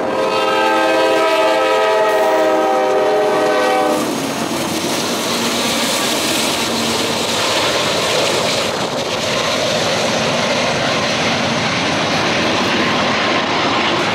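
CSX diesel freight locomotive's multi-chime air horn sounds one long chord of about four seconds and then stops, a warning blown as the train nears a grade crossing. After it, the freight cars rumble and clatter past on the rails, steadily.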